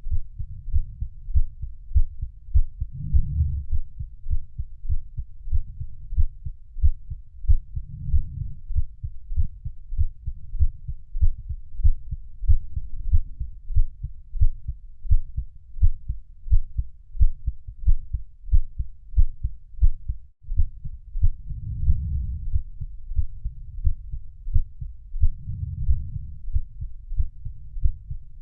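Heartbeat, a steady run of deep, muffled thumps. There is a momentary dropout about two-thirds of the way through.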